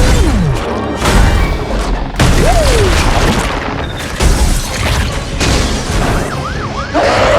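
Action film soundtrack: dramatic score mixed with heavy booms and smashing, crashing impacts, with a couple of falling tones sweeping down early on and midway.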